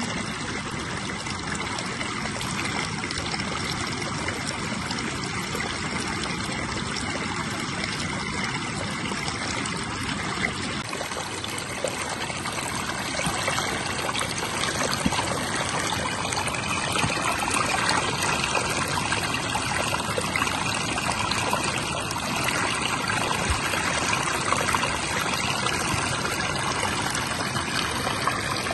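Running water, a steady trickle with no break.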